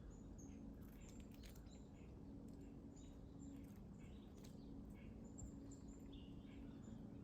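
Faint, scattered short bird chirps over a quiet outdoor background with a low steady hum.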